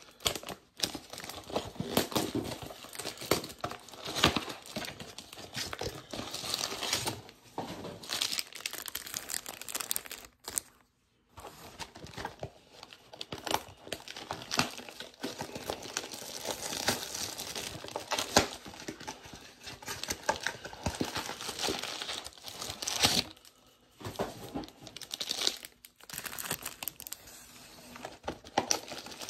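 Foil trading-card pack wrappers crinkling and rustling as they are handled, in dense irregular bursts with brief pauses about a third and four-fifths of the way through.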